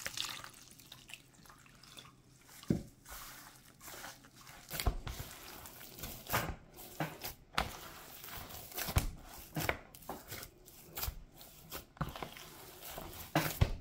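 Hands mixing and kneading corn masa dough (Maseca flour and water) in a plastic bowl: irregular squishes, soft slaps and knocks as the dough is pressed and turned against the bowl.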